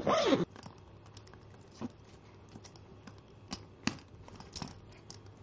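A zipper on a packed golf travel case being pulled, stopping about half a second in, followed by a few faint, scattered clicks and taps.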